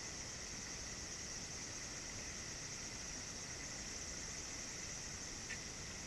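Steady high-pitched insect chorus ringing without a break, with one short chirp about five and a half seconds in.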